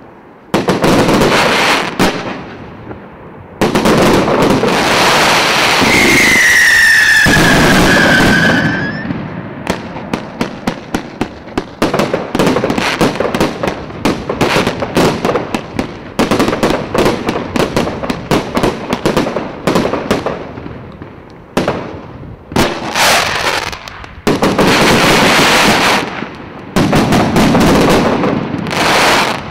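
A 258-shot, 1.25-inch Premier Salute "Tsarsky Salyut" firework cake firing volley after volley. There are long loud stretches of dense bursts, a whistle falling slightly in pitch about six seconds in, then a fast run of sharp separate reports, several a second, before the dense bursts return near the end.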